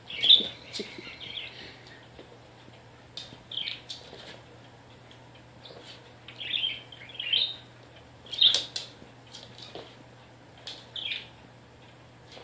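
Pet budgerigar (parakeet) chirping: about ten short, high calls scattered through the stretch, one or two at a time, with gaps of a second or more between.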